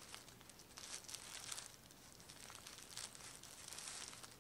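Faint crinkling and rustling of tissue paper as a tissue-wrapped skein of yarn is handled, in short spells about a second in and again around three seconds.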